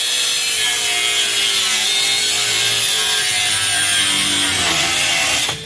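Angle grinder cutting through the fan blade on an electric fan motor: a steady, loud grinding hiss over the tool's motor whine, which dips under load. Near the end the grinding stops and the whine falls away as the disc spins down.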